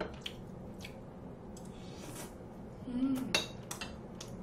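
Eating utensils clicking and clinking against a stainless steel pot and bowl: a handful of scattered light taps, the loudest few about three and a half seconds in.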